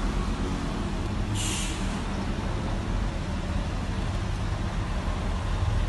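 Steady low rumble of road traffic, with a short hiss about a second and a half in.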